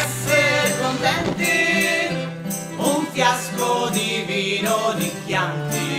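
Background music: a cheerful Italian drinking song about Chianti wine, sung over a steady bass accompaniment.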